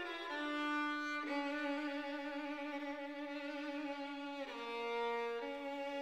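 Background music: a slow violin-led melody in long held notes.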